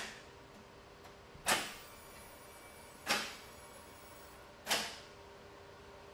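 Lamborghini Gallardo LP 560-4's e-gear gearbox shifting by itself during a grid self-tune: four sharp clacks about a second and a half apart as the hydraulic actuator steps through the gears to recalibrate the shift points. A faint steady hum sounds between some of the shifts.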